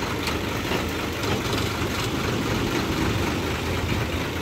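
Heavy truck's diesel engine running steadily at low revs, a continuous low hum.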